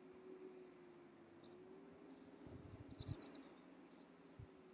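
Faint, distant songbird chirps, including a quick trill of several high notes just past the middle, over a steady faint hum. A few soft low knocks come at the same time as the trill.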